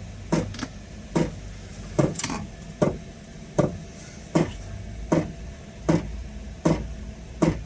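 Chinese diesel heater's fuel dosing pump ticking steadily, about one sharp click every 0.8 seconds, as it primes the fuel line on first start.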